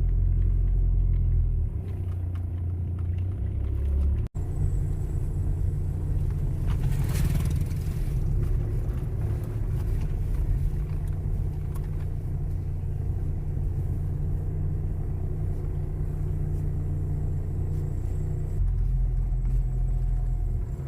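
Steady low rumble of a car being driven, heard from inside the cabin. It cuts out for an instant about four seconds in, and a brief rush of noise comes a few seconds later.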